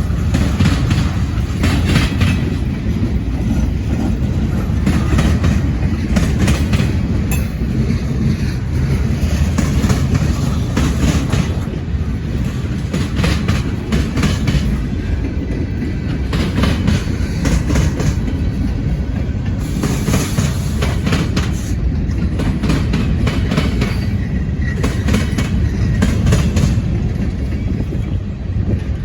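Freight train cars rolling past close by: a steady low rumble with steel wheels clicking over rail joints throughout.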